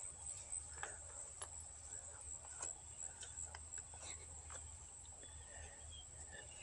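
Crickets chirring in a steady, high, continuous trill, with scattered faint clicks.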